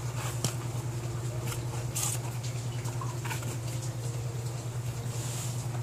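Cardboard shipping box being handled, its flaps and the packed cartons inside giving a few short rustles and taps, over a steady low hum.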